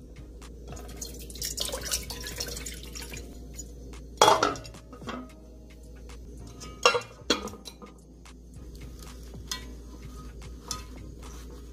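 A ceramic plate set down into a metal pot: two sharp clanks about four and seven seconds in, among lighter clicks and a few seconds of soft hissing noise.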